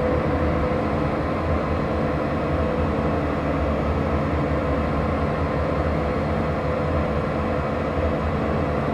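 Slowly evolving electronic drone and noise from a Make Noise Strega synthesizer and a Wingie, layered with looped drone recordings and processed through a Chase Bliss Mood and reverb. It is steady and dense, with a held pitch in the middle over a low rumbling bed and a hiss on top.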